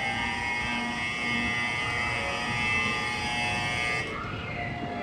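Electronic station platform bell ringing continuously in a steady, shrill multi-tone ring, then cutting off suddenly about four seconds in.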